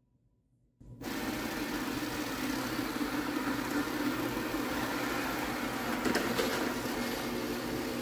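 Yeedi K760x robot vacuum running as it drives across a hardwood floor: a steady whir of its suction motor with a low hum. The sound starts suddenly about a second in, after near silence.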